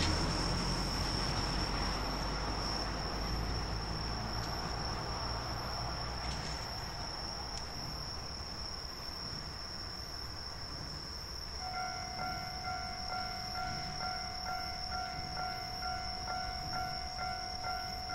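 Low rumble of a locomotive in the rail yard, fading over the first several seconds. About twelve seconds in, a railway level-crossing alarm starts ringing, about two strokes a second.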